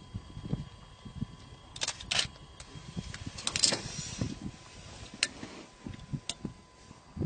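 Scattered sharp clicks and knocks, a second or more apart, over a low rumbling background.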